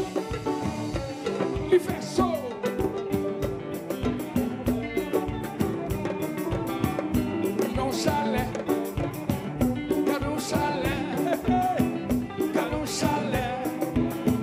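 Live band playing upbeat dance music: congas and a drum kit keeping a steady, fast beat under guitar and keyboard, with a lead singer's voice over it.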